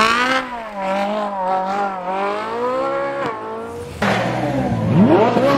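Straight-piped Ferrari 458 Italia's 4.5-litre naturally aspirated V8 held at high revs, the pitch wavering up and down as the rear tyres spin in a powerslide, then falling away after about three seconds. About a second before the end, a Corvette's V8 revs up sharply.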